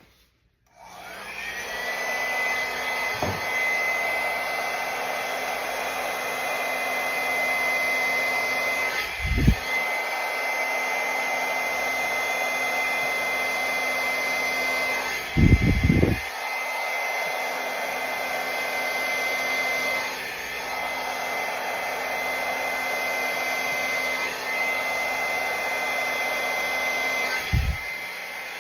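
Drew Barrymore flower hair dryer switching on and running at a steady speed, with a constant high whine over the rush of air. It is blowing across wet pour paint to spread it into a bloom. A few low thumps come about 9 seconds in, around 16 seconds, and near the end.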